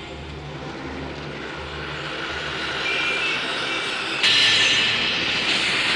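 Car driving on the road, heard from inside the cabin: a steady low engine hum under road and traffic noise. The noise turns suddenly louder and more hissy about four seconds in.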